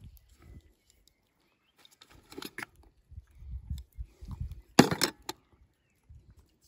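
Hand-tool work on a tree branch: soft knocks and rustling, then one loud, sharp snap about five seconds in, followed by two smaller clicks.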